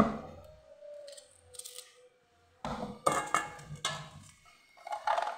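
Onion chunks dropped and handled in a plastic food processor bowl: a sharp thunk at the start, then bursts of knocking and clatter about three seconds in and again about five seconds in.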